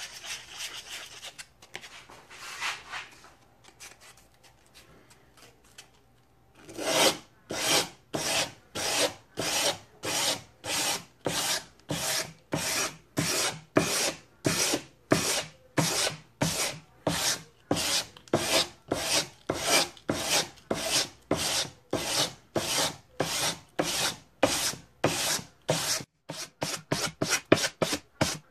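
Sandpaper on a hand block scraped back and forth along a hand-forged steel sword blade, hand sanding to blend the grinder marks into a uniform finish. After a few seconds of light, scattered rubbing, it settles into steady strokes about two a second, then quickens to about four a second near the end.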